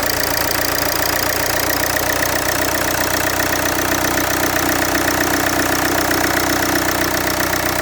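Land Rover Freelander 2 engine running steadily at idle with a loud mechanical noise, which the owner takes for a fault; a low hum in it grows louder about two and a half seconds in.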